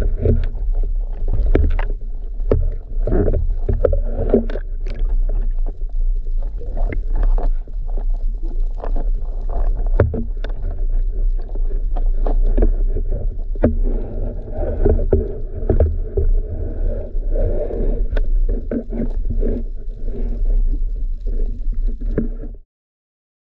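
Underwater audio from a speargun-mounted camera: a steady low rumble of water moving past the housing, with irregular clicks and knocks from the gear throughout. It cuts off suddenly near the end.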